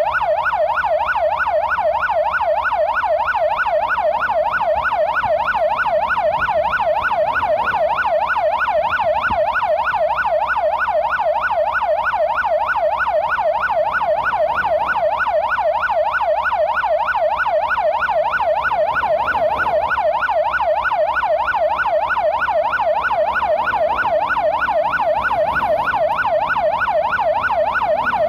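Emergency-vehicle siren in a fast yelp, its pitch sweeping up and down rapidly over and over at a steady level.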